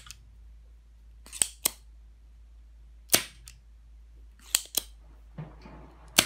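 Spring-loaded desoldering pump (solder sucker) snapping as it is fired, about every one and a half seconds, twice followed closely by a second click. It is sucking molten solder off the legs of a washing machine control board's triac to free the part.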